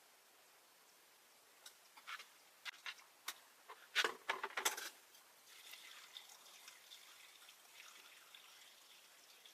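A few sharp knocks and clatters, loudest about four seconds in, then faint running water trickling steadily.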